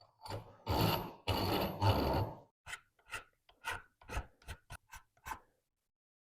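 Hand file stroking across the edge of a brass hammerhead, chamfering it: two longer strokes, then about nine short, quick strokes, stopping about five and a half seconds in.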